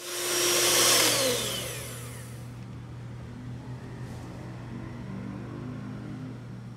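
Mondial electric stand mixer being switched off after whipping chantilly cream: its motor whine falls in pitch and fades over about two seconds as the beaters spin down. A low steady hum remains after that.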